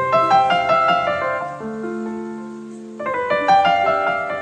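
Background piano music: a phrase of quick struck notes over held low notes, with a second phrase starting about three seconds in.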